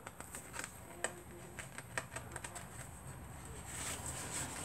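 Sheets of a sticker book being handled and flipped: faint scattered paper clicks and ticks, with a louder rustle of pages near the end.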